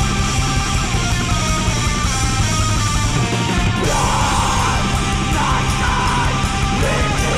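Black metal recording: dense distorted electric guitars play continuously, and a harsh shrieked vocal comes in about four seconds in.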